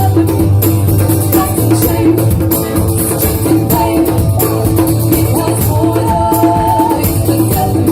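Live band playing a song: drums and percussion keeping a steady beat under guitar, with a voice singing long held notes.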